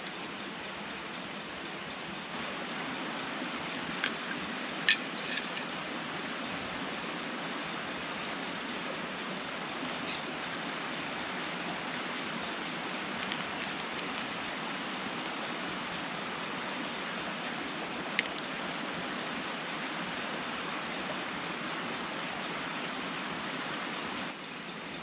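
Crickets or other night insects trilling in one continuous high note, over a steady rushing background, with a few faint clicks.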